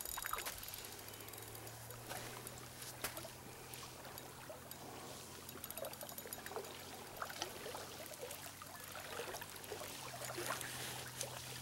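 Faint water sounds: small waves lapping at the shoreline and a hooked fish splashing at the surface close in, as a series of short, sharp splashes.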